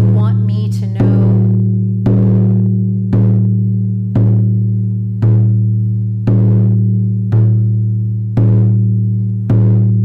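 Slow, steady drumbeat: a deep drum struck about once a second, each beat ringing on into the next over a low, steady hum.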